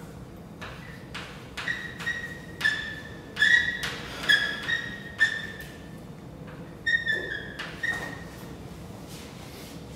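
Chalk drawing on a chalkboard: a run of tapping, scraping strokes, with several short, high chalk squeaks between about two and eight seconds in.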